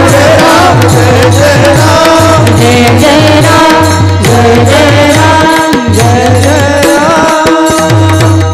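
Devotional kirtan bhajan: voices chanting a repeated melody over a steady held drone, with a regular drum beat and frequent cymbal clashes.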